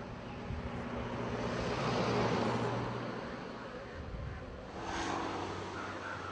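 A motor vehicle passing, its noise swelling to a peak about two seconds in and fading, over a steady low engine hum; a second, shorter swell comes about five seconds in.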